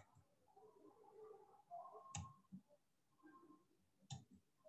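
Near silence: quiet room tone broken by three faint, sharp clicks about two seconds apart.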